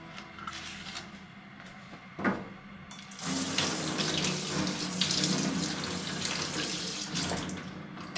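Kitchen tap running into a stainless steel sink for about four seconds. A sharp knock comes about two seconds in, just before the water starts.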